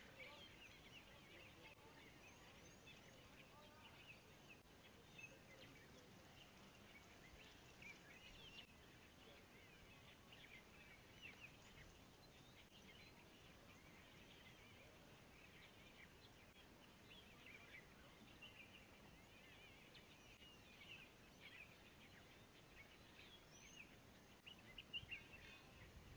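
Faint, continual chirping of many small wild birds over quiet outdoor background noise, with a few louder chirps near the end.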